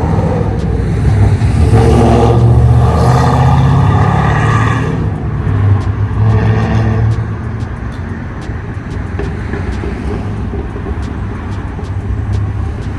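Motor vehicles passing close by in street traffic over a steady low rumble: the loudest goes by from about one to five seconds in, and a second, shorter pass follows around six seconds in.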